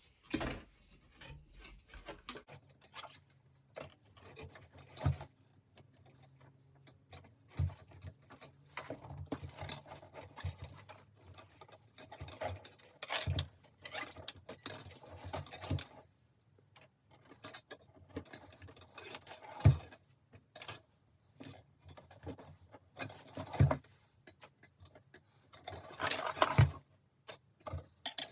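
Steel bicycle spokes clinking and jangling against each other and the hub as they are worked loose and pulled out of a wheel, in a string of irregular metallic clicks and knocks.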